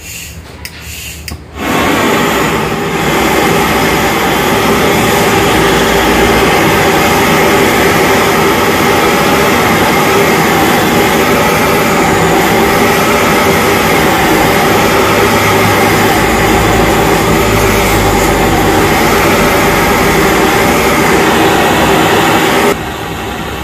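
LPG gas torch burning with a steady, loud rush as its blue flame heats the aluminium rim of a bent scooter mag wheel so that it can be pressed straight. A few clicks come just before the flame starts, and the sound drops sharply near the end.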